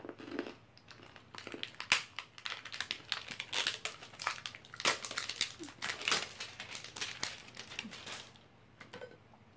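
Candy packaging crinkling and rustling as it is handled and opened, a dense run of quick crackles that stops about eight seconds in.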